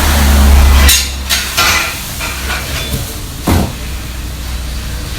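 Restaurant kitchen cooking: a loud low rumble that cuts off about a second in, then a quick run of metal clattering of utensils against pans and a single knock over steady kitchen background noise.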